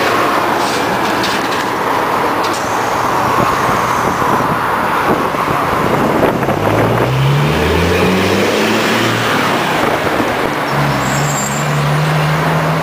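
Hyundai Super Aero City city bus pulling away from the stop over steady street traffic noise. About halfway through, its engine note climbs in steps as it moves off and works up through the gears. A brief hiss comes near the end.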